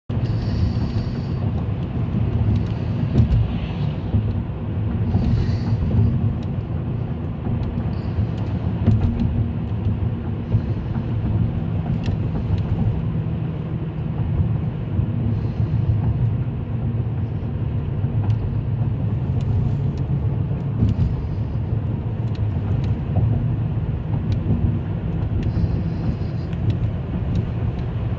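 Car driving along town streets, heard from inside the cabin: steady, low-pitched engine and road noise.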